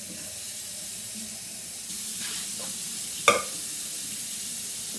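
Steady hiss of running water, with one sharp knock about three seconds in.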